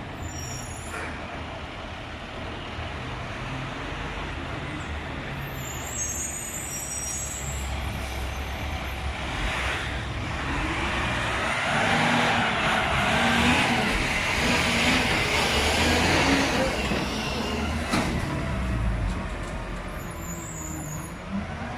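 Garbage truck running at the curb during collection, its noise building for several seconds in the middle before easing back.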